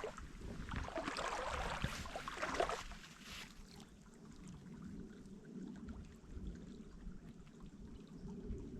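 Faint running creek water: a hissing trickle for the first three seconds or so, then a quieter, low rush.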